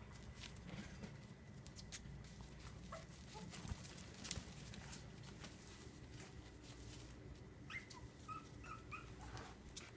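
Four-week-old Cavalier King Charles Spaniel puppies playing: quiet scuffling and scratching of small paws, with a few short, high whimpering squeaks near the end.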